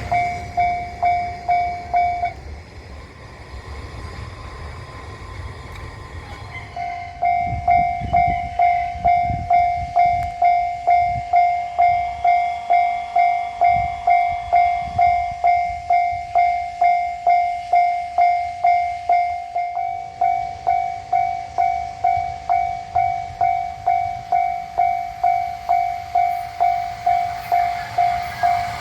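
Japanese railroad crossing warning bell ringing in a steady pulse, about two rings a second. It stops a couple of seconds in and starts again about seven seconds in. A train passes, its wheels clacking over the rail joints, most strongly in the middle.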